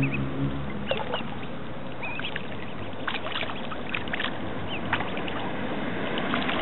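Ducklings peeping in short, high chirps, with scattered small splashes as they duck under the water, over a steady rushing background.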